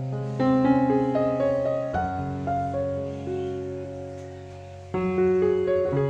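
Background piano music: a slow melody over held chords, with new chords struck about two seconds and five seconds in.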